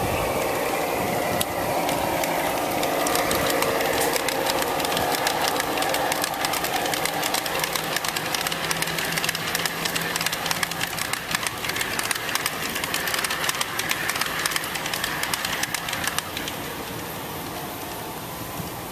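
G-scale model freight train rolling past on outdoor track: a rapid clatter of wheels over the rail joints over a hum, the clatter stopping near the end.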